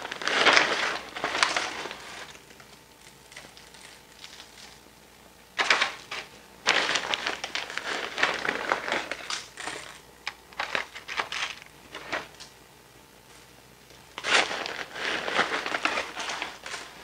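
Plastic bag of brown sugar crinkling and rustling as it is handled, in three bouts of crackly rustling with quieter gaps between.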